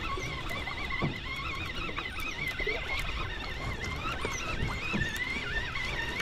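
Conventional fishing reel with a line counter being cranked in, giving a continuous high whine that wavers quickly up and down in pitch.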